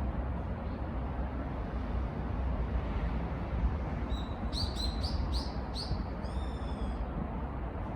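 Outdoor ambience with a steady low rumble, and a bird calling a quick run of about six short, high notes about four seconds in, ending with one longer call.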